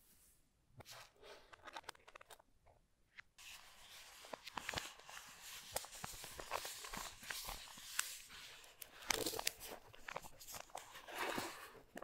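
A few light paper rustles and taps, then from about three seconds in the frosted plastic sleeve wrapped around a keyboard crinkles and rustles densely as gloved hands handle it.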